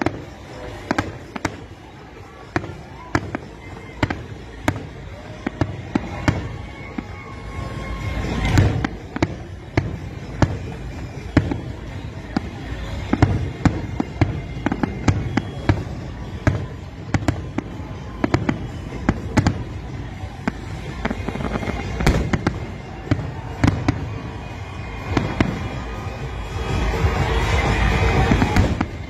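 Fireworks bursting in an irregular series of sharp bangs, about one or two a second, building to a denser, louder stretch of crackling near the end.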